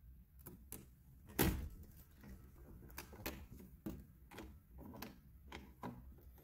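Repeated clicks, rattles and knocks of a glass balcony door's handle and lock being worked, with one louder knock about a second and a half in: someone struggling to open a door that is still locked.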